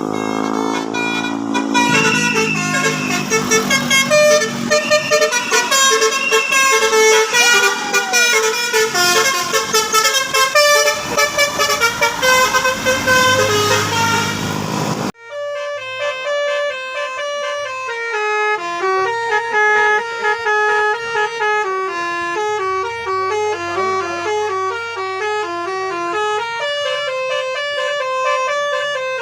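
Basuri telolet horn on a bus, its set of air horns playing a tune of short held notes that step up and down, with vehicle noise underneath. About halfway through the sound changes abruptly to a cleaner recording of the same kind of horn tune.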